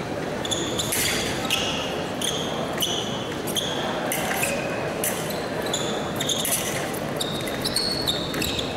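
Fencers' shoes squeaking and feet stamping on the piste as they advance and retreat, a rapid irregular run of short high squeaks and knocks over the steady murmur of a large arena hall.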